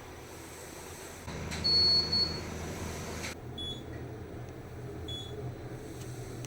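Kone elevator signal beeping over a low cabin hum: one loud, steady, high beep lasting just under a second, then short, fainter high beeps about every one and a half seconds.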